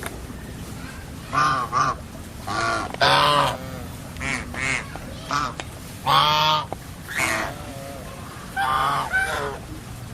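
Domestic white geese honking: a string of short, harsh honks at irregular intervals, the loudest about three and six seconds in.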